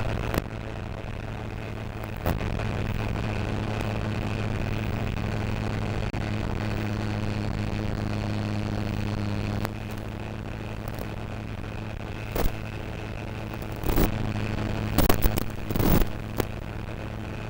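Onboard sound of an electric RC Spitfire in flight: a steady motor-and-propeller drone with rushing air, the drone easing off about ten seconds in as throttle comes back. Several short sharp crackles come near the end.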